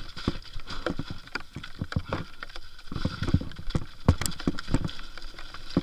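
Lapierre Zesty TR 4.9 full-suspension mountain bike rattling over a rough, wet, leaf-covered trail on a fast descent. Irregular knocks and clatters come from the bike and its tyres striking the ground, the loudest about four seconds in.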